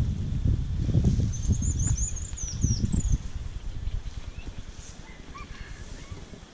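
A small bird singing a quick run of high chirps, over a low rumble that fades out after about three seconds.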